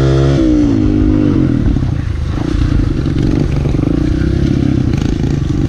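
Kawasaki pit bike's small four-stroke single-cylinder engine, heard from on the bike while riding: held at steady revs, it drops off about half a second in and then runs at lower, uneven revs as the throttle is worked.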